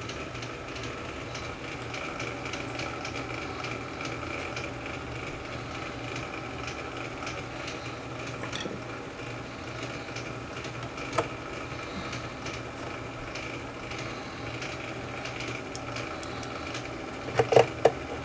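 Reel-to-reel tape deck transport running with a steady mechanical hum and whir while the mechanism is tested after reassembly. A sharp click comes about eleven seconds in, and a quick cluster of louder clicks near the end as parts are handled.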